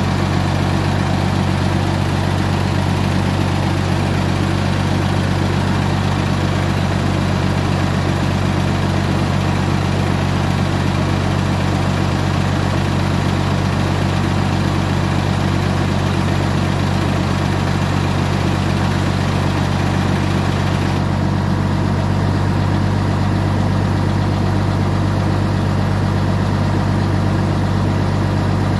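An engine running steadily with a constant low hum, its pitch unchanging. About two-thirds of the way through, the higher hiss over it becomes softer.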